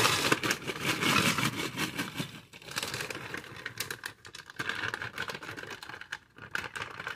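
Frozen mixed vegetables pouring from a bag into a glass casserole dish: a dense rattle of small hard frozen pieces clicking on the glass and on each other. It thins out after about two seconds into scattered clicks as the last pieces drop in.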